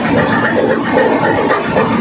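Ship's main diesel engine running, heard up close in the engine room as a loud, steady, dense mechanical noise.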